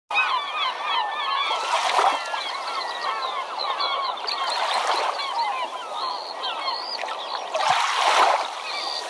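A large flock of birds calling continuously, many short overlapping cries, with waves washing in three times, about three seconds apart.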